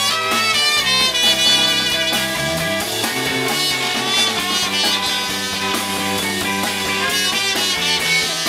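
A live band playing an instrumental passage, with several instruments sounding together in dense, sustained notes and no singing.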